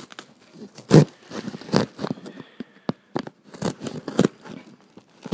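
Knife sawing and cutting through a box: irregular scrapes, crunches and tearing, with a few sharp knocks. The loudest comes about a second in.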